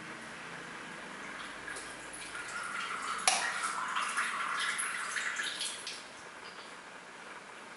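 Cat urinating into a toilet bowl from the rim: a splashing trickle into the bowl water for about four seconds, fading out near the end. A sharp click cuts in about three seconds in.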